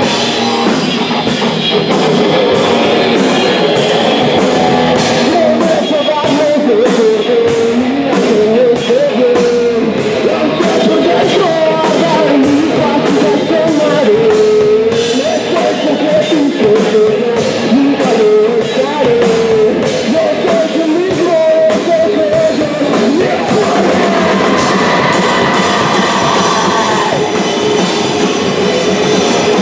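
Live rock band playing loud: distorted electric guitar, electric bass and a drum kit with dense drum and cymbal hits.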